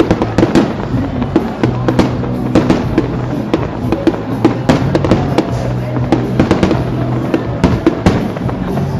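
Fireworks exploding in rapid, irregular succession, with many sharp bangs and crackles, over background music that holds steady low notes.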